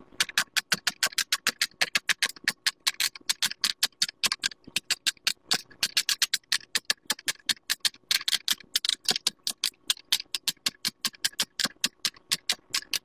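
Fingers popping the silicone bubbles of a large round pop-it fidget toy in quick succession. It is a fast, unbroken run of sharp pops, about seven a second.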